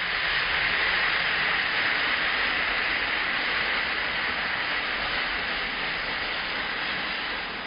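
Boiled chana and urad dal sizzling in a hot kadai, just poured onto the fried onion, tomato and spice masala. It is a steady hiss that eases a little near the end.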